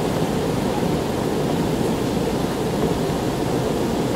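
Truck engine idling, a steady low rumble heard from inside the cab.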